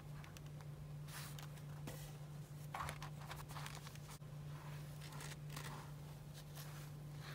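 Soft rustles and brushes of paper and card in the hands, in a series of short bursts, as a handmade paper file case is closed and its twine tie wound around it, over a steady low hum.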